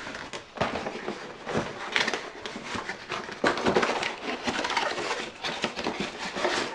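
Cardboard packaging being pulled open and handled: irregular crackling, scraping and rustling of cardboard with small knocks.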